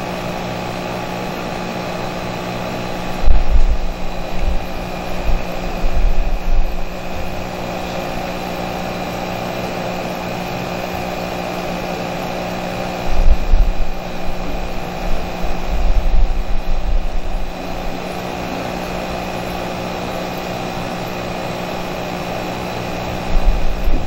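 Ozone machine's small air pump running with a steady electric hum made of several fixed pitches. Bursts of low rumble come and go about three seconds in, again in the middle, and near the end.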